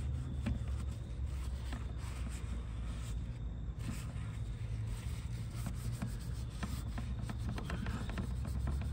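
Paper towel rubbing over the ridged plates of a small electric contact grill, wiping grease out in irregular scrubbing strokes, over a steady low rumble.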